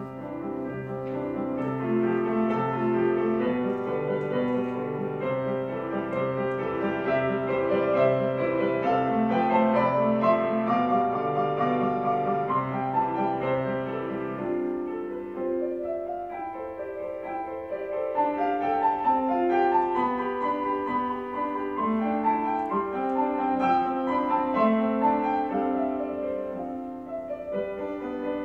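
Solo grand piano playing a flowing classical-style piece, with held low bass notes under moving chords in the first half. About halfway through the low bass drops out and the playing carries on in the middle and upper register.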